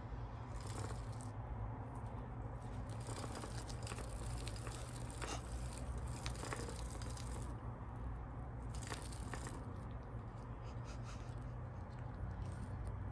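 British Longhair kittens playing: scattered small clicks and short rustles, irregular and light, over a steady low hum.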